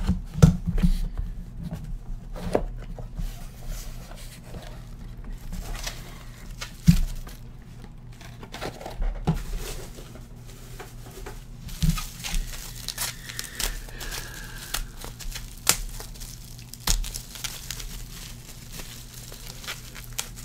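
Hands opening a cardboard card box and unwrapping bubble wrap from a graded card slab: irregular plastic crinkling and crackling with scattered taps and knocks, the sharpest about 7 and 12 seconds in.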